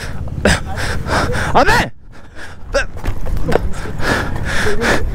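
A man gasping and grunting in short breathy outbursts during a scuffle, over a steady rumble of wind and handling noise on the body-worn camera.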